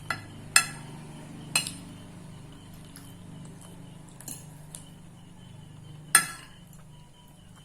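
Cutlery clinking against a plate while noodles are eaten: several sharp separate clinks, the loudest near the start and about six seconds in.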